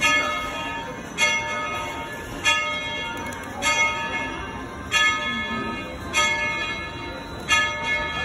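Steam locomotive's bell ringing steadily, one stroke about every 1.25 seconds, each ringing on until the next. This is the bell rung as the train is about to leave the station.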